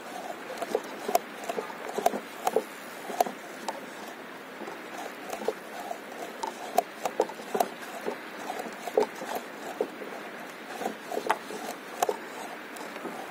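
Small waves lapping against a stand-up paddleboard: an irregular run of light slaps and plips over a steady hiss of water.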